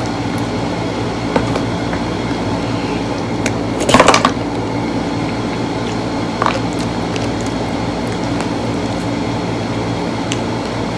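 Steady background hum, with a short crunchy burst about four seconds in: the hardened sugar shell of a candied strawberry (tanghulu) crunching as it is bitten and chewed. A smaller click follows a couple of seconds later.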